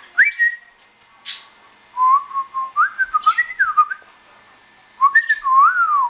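Whistling of short melodic phrases that step and glide up and down, in three bursts, the longest in the middle. Two or three short scratchy chirps from budgerigars come between the phrases.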